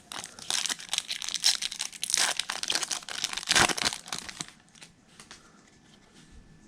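Foil trading-card pack wrapper crinkling and tearing as it is ripped open. The crackle runs for about four seconds and then stops.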